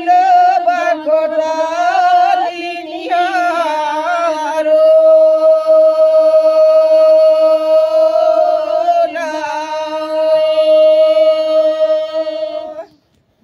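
Unaccompanied female singing of a traditional dev geet (devotional folk song). An ornamented, wavering phrase gives way to one long held note that stops short near the end.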